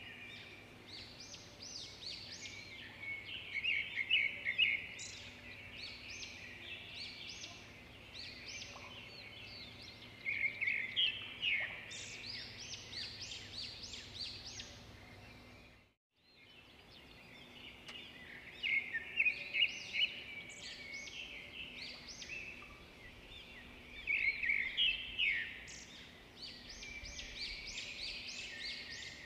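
Many small birds chirping in dense, quick runs of short calls over a faint steady hum; the sound fades out briefly about halfway through and then comes back.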